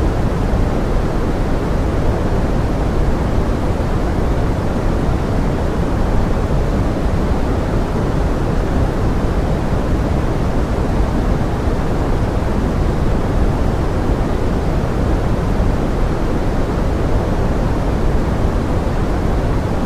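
Steady pink noise: an even, unchanging hiss weighted toward the low end, used as a rain-like masking sound.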